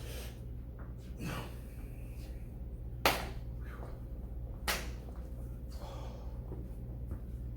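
Two sharp slaps about a second and a half apart, the first the louder, over a steady low hum.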